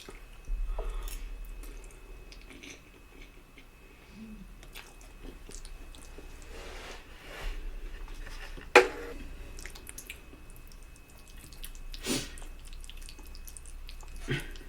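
Close-up wet chewing and mouth sounds of someone eating spaghetti, with scattered soft smacks and a few sharper clicks, the loudest about nine seconds in.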